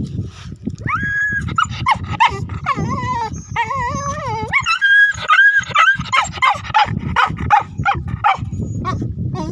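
Dog whining and yelping: high, wavering whines and short yips, over a steady low rumble.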